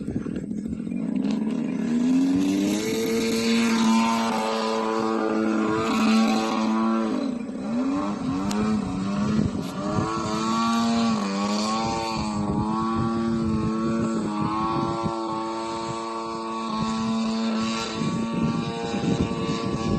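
55cc gas engine of a Pitts M12S model aircraft running: rough and low at first, it rises about two seconds in to a steady high pitch, which dips and recovers a couple of times along the way.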